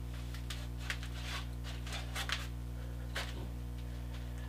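A steady low electrical hum, with a scatter of faint clicks and light rustling from small objects being handled.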